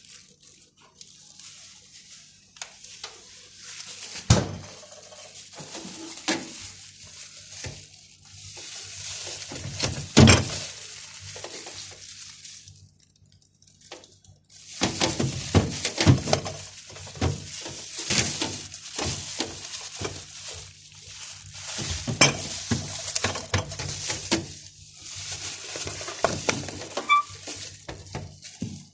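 Kitchen clatter: dishes, containers and utensils knocking and scraping in irregular bursts, with a brief lull about halfway through.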